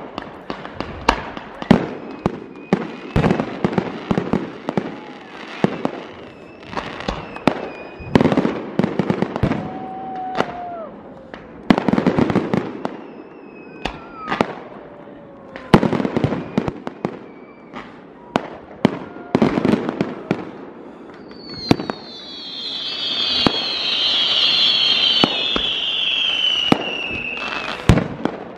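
Professional fireworks display: multi-shot cakes firing and shells bursting overhead, sharp bangs in rapid volleys every few seconds with thin whistles between. From about two-thirds of the way in, a dense high whistling slowly falls in pitch and runs on nearly to the end.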